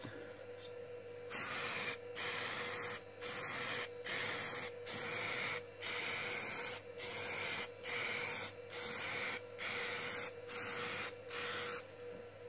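High-pressure Cobra aerosol can spraying matte clear lacquer, hissing in a dozen or so short bursts of under a second each with brief breaks between them, starting a little over a second in.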